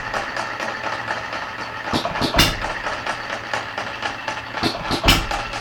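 Red Wing 1/3-scale model hit-and-miss engine running, firing twice about two and a half seconds apart. Between the firings it coasts on its flywheels with a quick, steady clicking.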